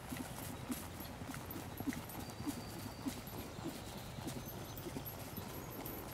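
Hoofbeats of a ridden horse moving briskly over grass turf, in a steady, even rhythm.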